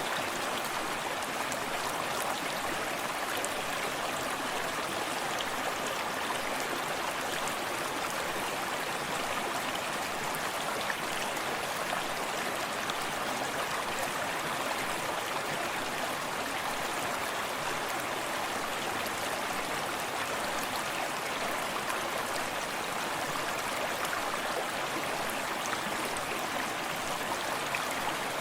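Small forest stream running steadily: an even, unbroken rush of flowing water with fine, close splashing and lapping throughout.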